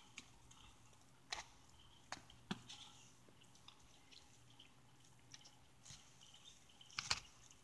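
Near silence, with a few faint scattered clicks; the sharpest comes near the end.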